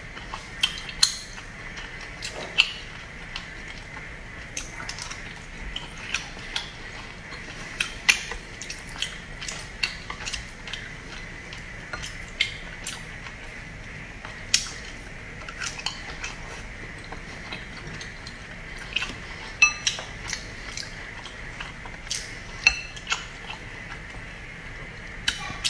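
Mukbang eating sounds: chewing and wet mouth clicks of raw salmon sashimi, with wooden chopsticks tapping a glass dipping bowl. Many sharp, irregular clicks, with a faint steady high tone underneath.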